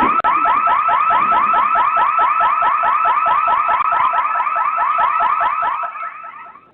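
Security camera's built-in alarm siren going off to scare off a thief: a loud electronic warble repeating about five times a second, fading out near the end.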